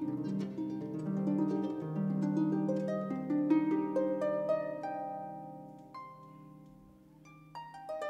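Concert harp playing a passage of plucked notes and arpeggios that ring on and decay. About six seconds in the playing thins to a few ringing notes, then picks up again near the end.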